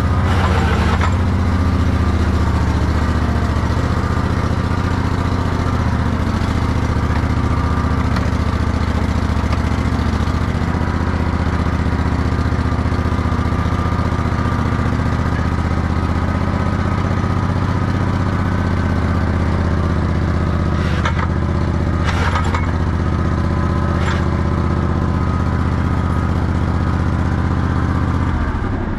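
Old skid steer's engine running steadily just after a cold start, with a few brief knocks late on. The engine stops shortly before the end.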